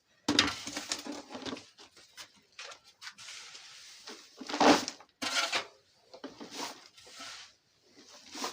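Rustling and crunching of cattle fodder (grass) being handled, in a string of uneven bursts, the loudest a little under five seconds in.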